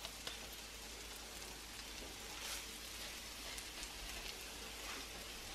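Raw ground beef patties sizzling in a nonstick frying pan as their outsides sear: a steady, faint hiss with scattered small crackles.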